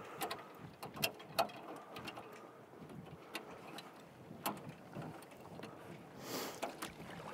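Faint handling noise of stiff insulated electrical wires being sorted inside a power pedestal: scattered light clicks and knocks, with a brief brushing rustle near the end.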